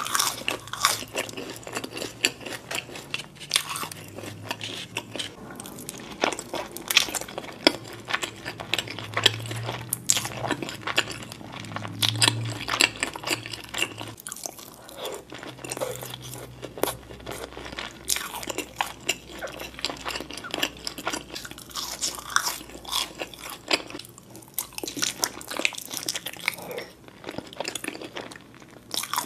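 Close-miked crunching and chewing: bites of sauce-coated fried chicken and french fries, crisp crackles coming irregularly and densely throughout.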